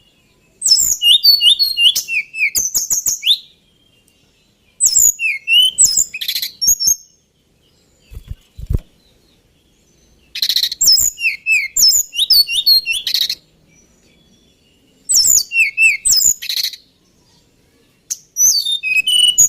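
Male tledekan gunung singing: five bursts of rapid, high whistled notes with sliding slurs, each burst two to three seconds long with short pauses between. A couple of soft low knocks come between bursts near the middle.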